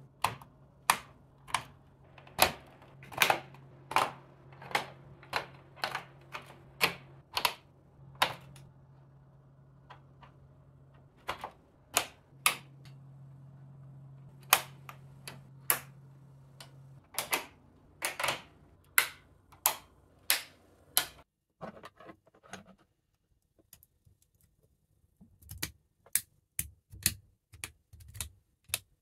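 Sharp plastic clicks of LEGO Technic pins and beams being snapped together by hand, roughly one a second with some in quick pairs. The clicks pause briefly about two-thirds of the way through, then come again softer and closer together near the end.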